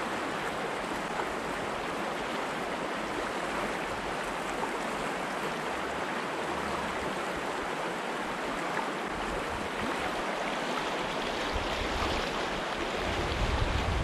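Mountain stream running high and murky with snowmelt, a steady rush of water; a low rumble creeps in near the end.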